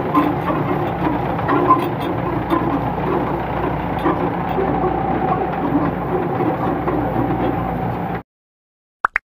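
Tractor-driven rotary tiller running, its blades churning through old rice-husk litter over the steady drone of the tractor engine. It cuts off abruptly about eight seconds in, and two short rising blips follow.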